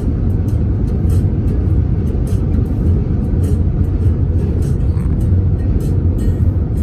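Steady low rumble of a car driving on the highway: road, tyre and engine noise, with many faint short clicks over it.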